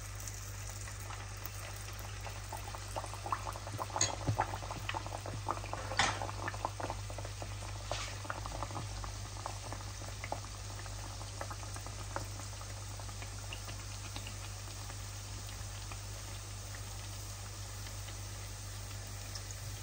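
Handesh batter of rice flour, plain flour and sugar frying in hot oil in a pan: crackling and sizzling that is busiest a few seconds in, then thins to a sparse pop and bubble. A steady low hum runs underneath.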